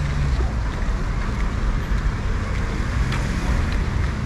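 Steady city street noise: road traffic running, with wind rumbling on the microphone.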